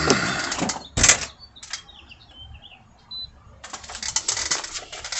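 Handling clatter of equipment being moved, with a sharp click about a second in. A quieter stretch with a few faint high chirps follows, then rapid rattling and clicking from about three and a half seconds on.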